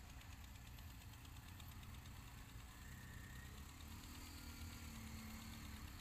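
Faint engine idling, a steady low rumble; a second, higher hum joins about four seconds in.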